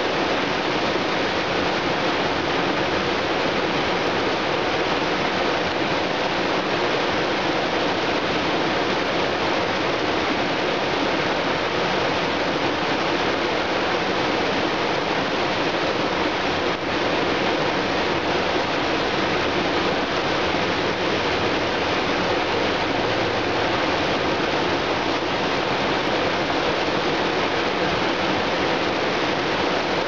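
Small mountain-creek waterfall pouring over rock ledges into a pool: a steady rush of falling, churning water.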